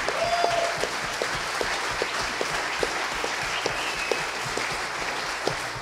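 A large audience applauding, with one pair of hands close to the microphone clapping distinctly at about two and a half claps a second.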